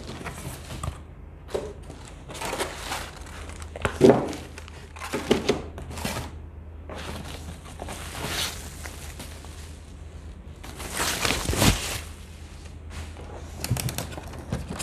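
Plastic wrapping crinkling and cardboard rustling as a boxed air purifier is handled and unwrapped, with a few short knocks. The longest, loudest rustle comes about two-thirds of the way through.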